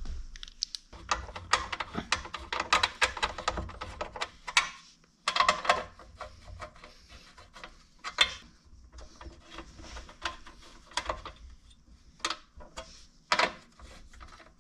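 Metal parts being handled and fitted: irregular clicks, scrapes and light clattering in short bursts as a recoil pull-starter housing is positioned on a small engine.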